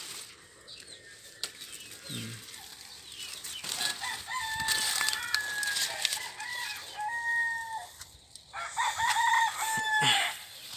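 A rooster crowing: a long crow about four seconds in and another about eight and a half seconds in. Leaves rustle as vines are handled close by.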